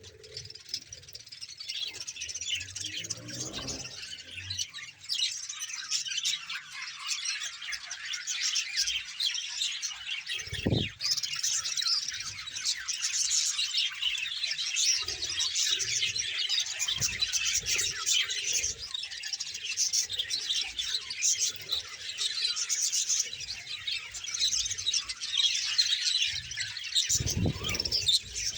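A large flock of budgerigars chattering and chirping together, a dense, continuous high twittering from many birds at once. A few brief low thumps come through, one about eleven seconds in and more near the end.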